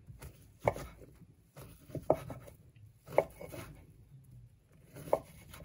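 Kitchen knife slicing through a bundle of imitation crab sticks and knocking on an end-grain wooden cutting board: four cuts, a second or more apart.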